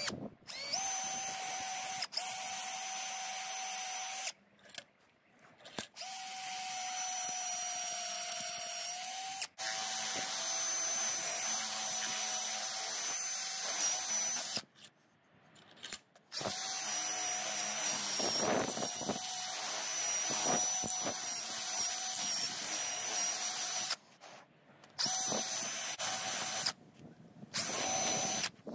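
Cordless drill boring into the end of a piece of antler held in a vise, hollowing out its core. It runs with a steady whine in long stretches and stops briefly several times.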